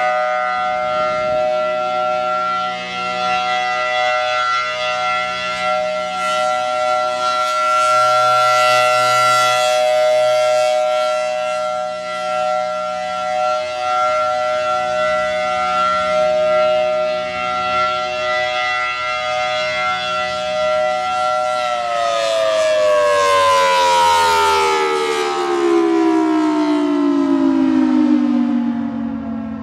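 Federal Signal Thunderbolt 1003 rotating warning siren sounding a steady single-tone alert, its loudness swelling and fading as the turning horn sweeps past. About 22 seconds in it winds down, the pitch falling steadily as the rotor slows at the end of the signal.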